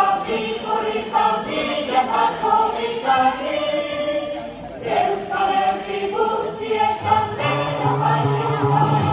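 A group of voices singing together in unison, in short phrases. A low bass accompaniment comes in about seven and a half seconds in.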